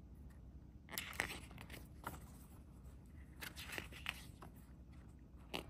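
CD lyric booklet being handled and opened: faint paper rustles and scrapes, in short clusters about a second in and again around four seconds.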